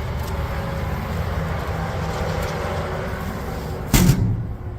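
Steady low rumble, then a single loud clunk about four seconds in, with a short low ring after it.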